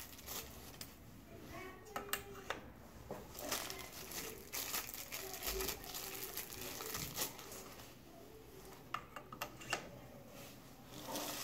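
Small plastic bag crinkling as a microscope eyepiece is unwrapped by hand, with scattered sharp clicks, several close together near the end.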